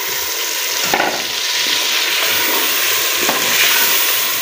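Onion and spice masala frying in ghee in a pressure cooker pot, sizzling steadily with whole tomatoes just added. A couple of light knocks sound about a second in and a little after three seconds.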